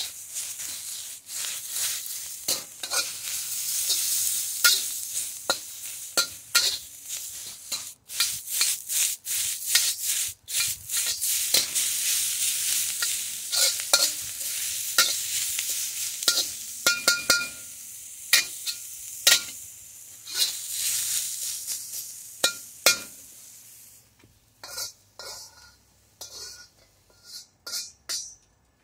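Vegetables sizzling in a hot wok while a metal spatula scrapes and clanks against the wok as they are tossed. About four seconds before the end the sizzling dies away, leaving a few separate clicks and knocks.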